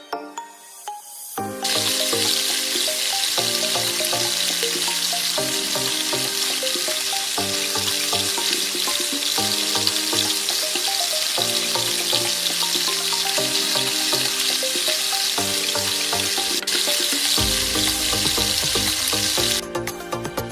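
Donut dough deep-frying in hot oil, a steady sizzle that starts about a second and a half in and cuts off shortly before the end.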